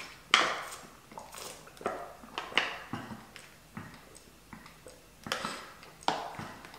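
A man gulping a drink from a plastic bottle: a string of short swallowing gulps at irregular intervals.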